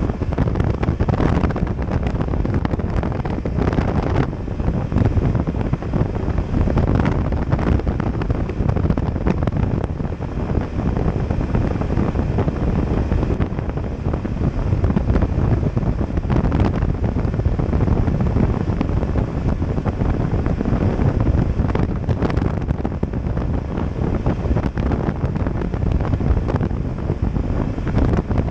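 Wind buffeting a motorcycle-mounted camera's microphone while riding at road speed: a steady, loud rushing noise that swells and dips in gusts.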